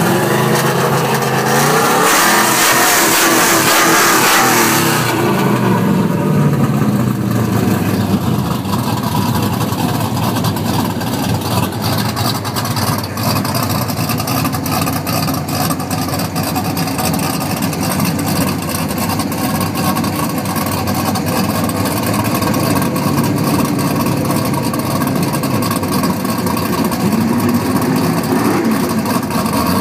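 Engine of a 2000 Chevy Silverado extended-cab drag truck revving hard under a loud rushing hiss for about the first five seconds, then running at a steady low speed, with a brief rise in revs near the end.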